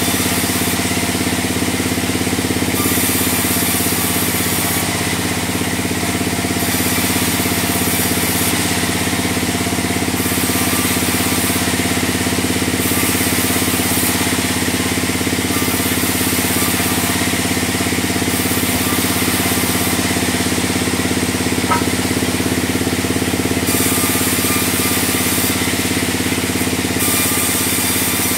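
Large log bandsaw mill running with a steady motor drone while its blade cuts through a log, a high hiss coming and going every few seconds.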